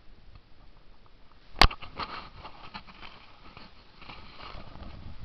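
Faint scuffing and rustling on dry soil and leaf litter, with one sharp knock about one and a half seconds in.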